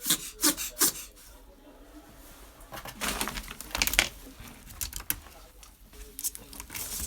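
A series of short, sharp sneezes: three in quick succession in the first second, then a few more spaced a second or two apart.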